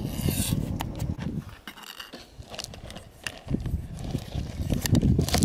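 Long metal spoon stirring and knocking in a metal camp pot, a scatter of light clicks and scrapes. Under it runs a low rumble that drops away for about two seconds in the middle.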